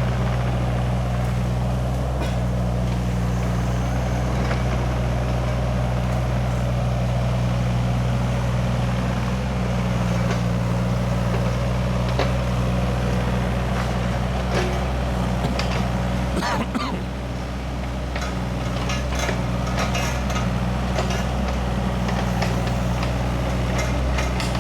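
Excavator diesel engine running steadily, with scattered metallic clanks from the machine at work, more of them in the last third.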